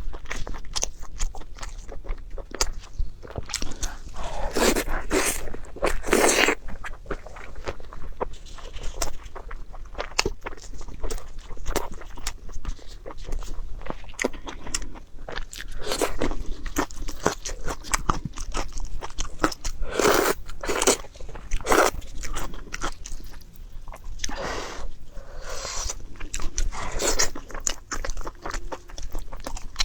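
Close-miked eating: a person chewing and biting into food, many small clicks with several louder crunching bites spread through.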